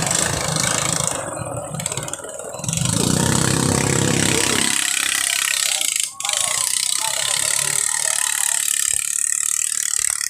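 Ketinting longtail boat engines running, a loud, harsh steady noise, with people's voices in the background. A sharp click about six seconds in.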